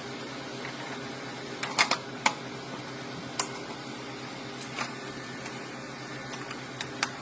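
Sharp clicks and knocks of hard parts being handled, a cluster of them about two seconds in and single ones later, over a steady low hum.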